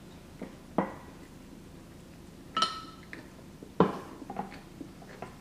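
Clinks and knocks against a glass baking dish of pasta: a sharp knock about a second in, a ringing glass clink about two and a half seconds in, and another sharp knock near four seconds.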